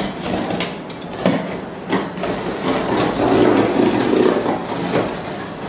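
Utility knife slicing through the packing tape along the seam of a large cardboard carton, a rough scraping that grows strongest about two seconds in and lasts several seconds, with the cardboard rustling and knocking sharply a few times.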